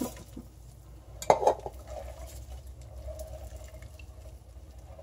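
Potassium hydroxide lye dissolving in water in a stainless steel pot while it is stirred with a silicone spatula, the hot solution making a faint, steady growl with liquid sounds. There is a sharp knock about a second in.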